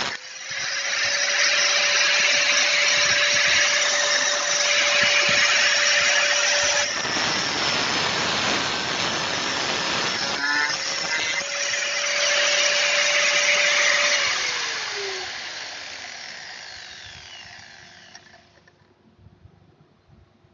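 Angle grinder running at full speed, its motor whine over the noise of the disc cutting, with abrupt changes about 7 and 10 seconds in. Near the end it is switched off and the whine falls in pitch as the disc spins down to a stop.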